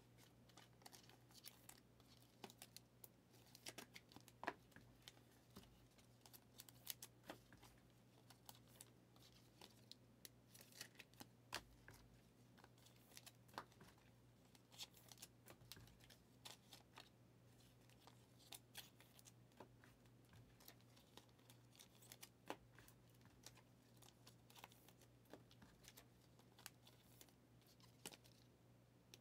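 Faint, scattered clicks and rustles of Prizm football trading cards being handled, flipped and stacked, over a low steady hum.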